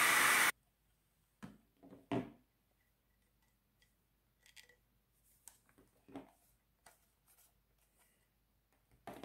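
A hair dryer blows steadily and is switched off about half a second in. Then come scattered soft clicks and knocks as the warmed vinyl tail sections of a figure are handled and pushed together.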